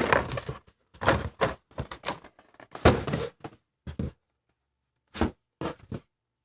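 Small plastic paint bottles and their packaging being handled: a run of irregular clatters, knocks and rustles, thinning out to a few separate knocks near the end.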